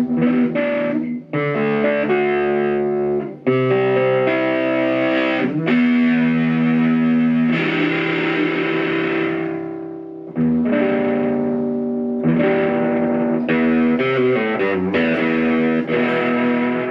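Electric guitar played through the Stomp Box Fuzz pedal's low-to-medium gain boost circuit, with a lightly distorted tone. Chords ring out with brief breaks, and the sound fades once about ten seconds in before playing picks up again.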